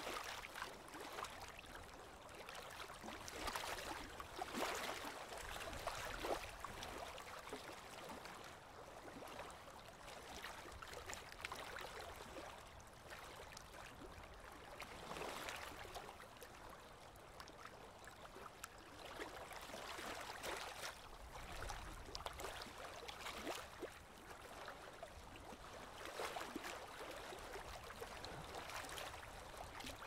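Water lapping with wind: a faint, steady wash of water noise that swells and fades every few seconds.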